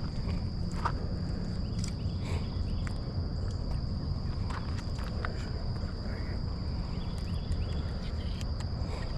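Outdoor ambience: a steady high insect trill over a constant low rumble, with scattered light clicks and footstep-like sounds.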